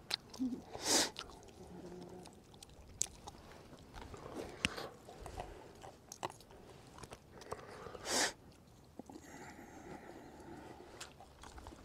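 Quiet snacking: scattered small crunches and clicks of people eating and shelling small snacks by hand, with two short hissing noises, one about a second in and another about eight seconds in.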